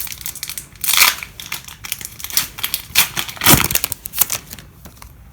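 Foil wrapper of a Pokémon trading-card booster pack crinkling and being torn open, with loud rips about a second in and again around three seconds in.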